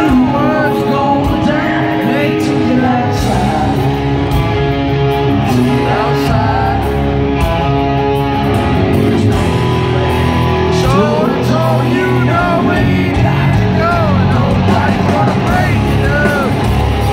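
Live rock band playing loud in an arena, with electric guitars, drums and a man singing lead.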